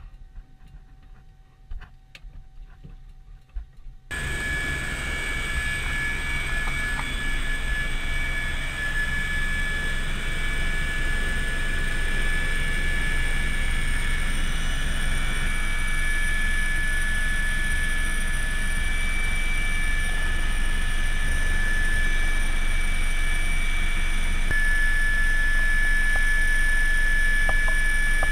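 Eurocopter UH-72A Lakota helicopter's twin turboshaft engines and main rotor running, a steady high turbine whine over a dense rotor noise. It starts suddenly about four seconds in, after a few faint clicks, and grows slightly louder toward the end.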